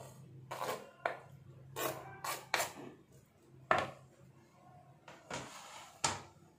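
Cut mango pieces being added to a bowl of fruit: a series of short, irregular knocks and scrapes against a wooden board and dish, with a longer scrape a little after five seconds.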